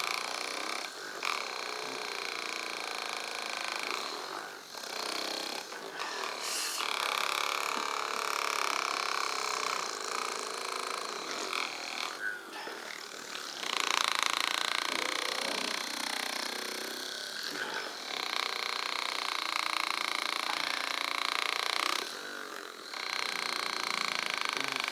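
Small handheld electric device running with a steady buzz during a foot massage, cutting out briefly a few times.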